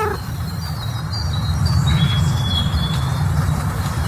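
Outdoor background ambience: a steady low rumble with faint, high, thin chirps over it. The end of a cat's meow trails off right at the start.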